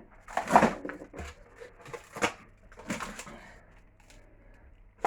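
Frozen pizza boxes and packaging being handled in a freezer: a few short bursts of rustling and knocking, the loudest about half a second in.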